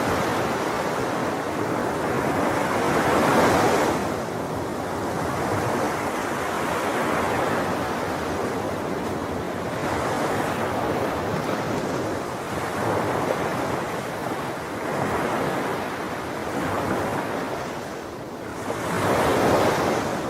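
Sea waves washing onto a shore, rising and falling in swells every few seconds, the biggest about three seconds in and near the end.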